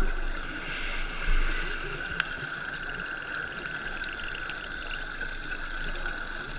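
Underwater scuba ambience heard through a GoPro's waterproof housing: a steady hiss with low, muffled rumbles of exhaled regulator bubbles, strongest near the start and again about a second and a half in, then settling to a steady background wash.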